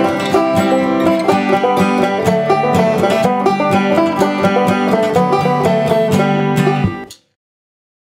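Ashthorpe banjo picked in a quick run of bright plucked notes, bluegrass style, cutting off abruptly about seven seconds in.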